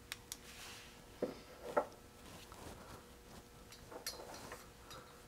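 A few faint, sharp clicks near the start, a couple of brief soft sounds a little over a second in, and light ticks around four seconds in, over a quiet room with a faint steady hum.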